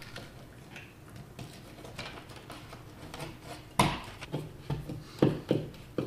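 Plastic old-work electrical box being fitted into a drywall hole: faint handling scrapes, a sharp click a little past halfway, then a screwdriver turning the box's mounting screws with short regular clicks about two to three a second.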